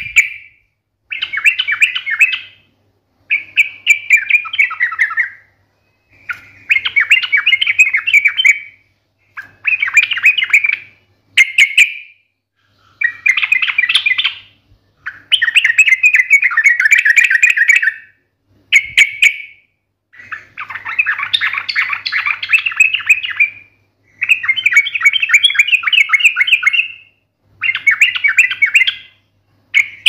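Yellow-vented bulbul singing loud phrases of rapid chattering notes, each one to three seconds long, one after another with short pauses between them.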